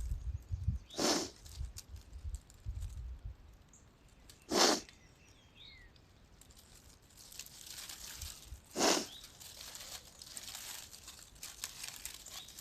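Three short, sharp nasal sniffles about four seconds apart, from a person with severe allergies. Between them comes faint rustling and crinkling of plastic bird netting being handled and cut.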